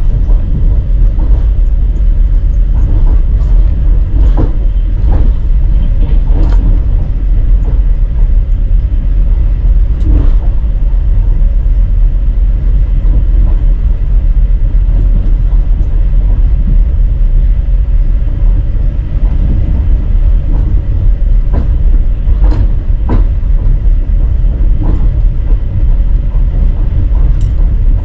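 A moving passenger train running: a steady, loud low rumble with scattered knocks and rattles.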